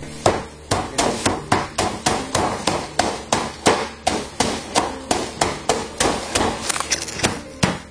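Quick, evenly spaced knocks of a hand tool beating frozen honeybee drone brood comb wrapped in newspaper on a table, about three blows a second. The blows break up the frozen wax cells to free the larvae and pupae.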